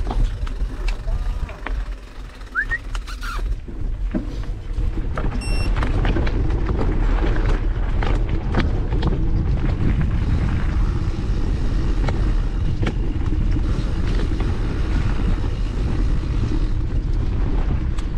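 A mountain bike ridden over a dirt and gravel track, heard from a camera mounted on the bike. The tyres rumble over the ground, wind buffets the microphone, and the bike rattles and knocks frequently over bumps. It gets quieter briefly about two seconds in and louder again from about six seconds in, with a short high beep about five seconds in.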